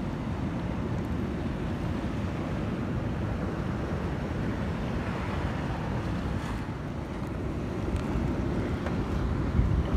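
Steady wind rumble on the microphone over the wash of sea water against the quay, with a few faint ticks near the end.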